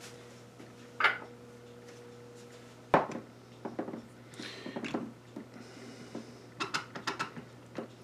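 Glass mason jar packed with cucumbers in brine being handled as fingers push the cucumbers down under the liquid: a knock about a second in, a sharp louder knock at about three seconds, then a run of small clicks and rubbing sounds, over a low steady hum.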